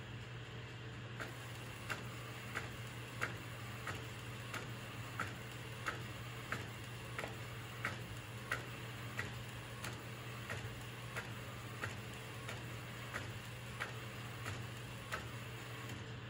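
Epson P405-based DTF printer printing on film: a regular, sharp click about every two-thirds of a second as the print-head carriage makes its passes, over a steady low hum.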